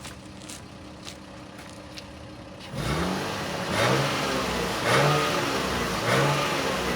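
Toyota 1G-FE inline-six, warmed up after more than five minutes of running, idling quietly, then from about three seconds in revved in a string of quick throttle blips, each rising and falling, about once a second.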